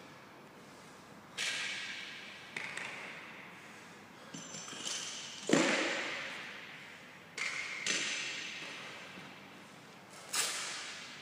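About seven sharp knocks and thuds that echo in a large hall, the loudest about five and a half seconds in, from gym equipment being handled and set down.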